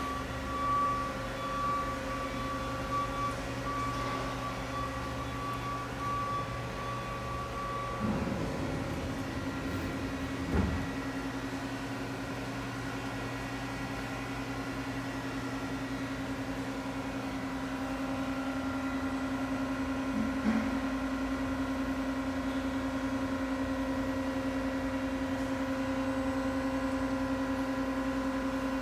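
Daewoo Lynx 200LC CNC turning center running under power: a steady mechanical hum with several constant tones. A high tone stops about eight seconds in, and there is a short thud about ten and a half seconds in.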